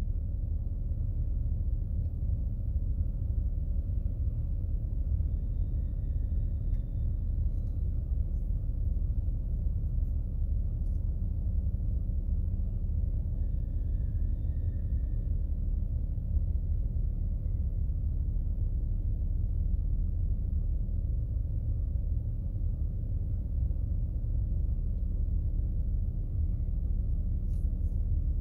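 BMW 7 Series (F02) petrol engine idling steadily at about 1,000 rpm while warming up after a cold start. It is heard from inside the cabin as a low, even rumble.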